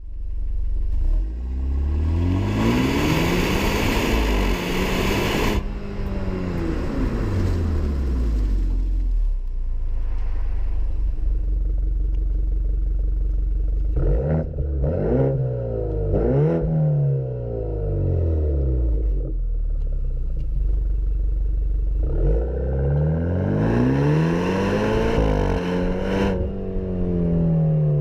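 Exhaust of a BMW 328i xDrive (F30) turbocharged four-cylinder through an AWE Tuning free-flow stainless steel exhaust with performance mid-pipe: a steady low note at idle, with the engine revved up and let fall back, first in one long rev, then in a few short quick blips, then in another long rise and fall near the end.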